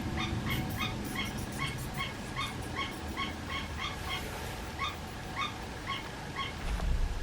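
An animal giving a quick series of short, high yipping calls, about three a second, stopping near the end. A low rumble comes in near the end.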